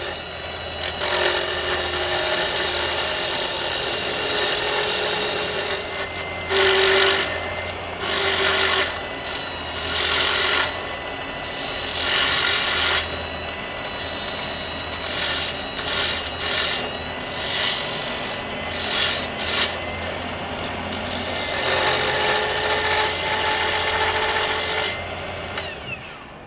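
Wood lathe spinning a holly pen blank while a turning tool cuts it: a steady motor hum under a hissing scrape of the cutting that swells and fades in strokes. The sound drops away near the end.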